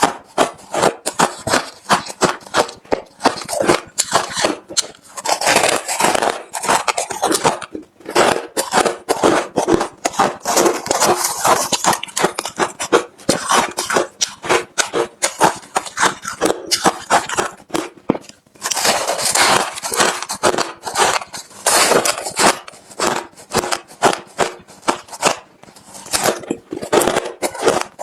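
Close-miked chewing of refrozen crushed ice: rapid, crisp crunches several times a second, with stretches of heavier grinding as mouthfuls are broken down.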